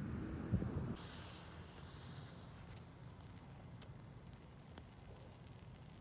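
Iron oxide–aluminium thermite burning: a steady high hiss with scattered crackles from about a second in. A single sharp click comes just before.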